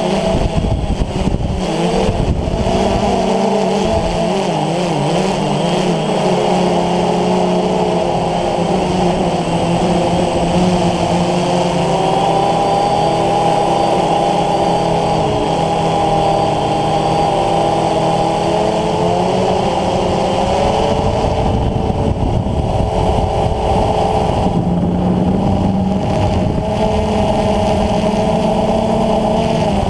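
DJI Phantom FC40 quadcopter's four motors and DJI 9450 propellers buzzing in flight, heard close up from the camera on the drone. The several tones of the buzz waver and glide up and down together as the motors speed up and slow down.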